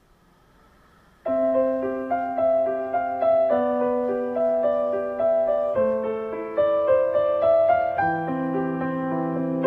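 Background piano music, a calm flowing line of single notes over held bass notes, starting suddenly about a second in after a moment of near silence.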